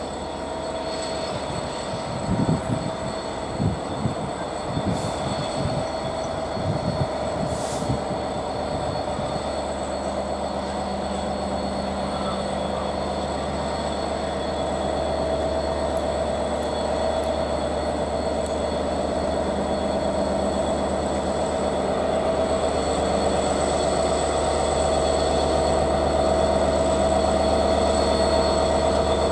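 A train running, with a steady hum and whine that grows gradually louder, and irregular low clattering knocks over the first several seconds.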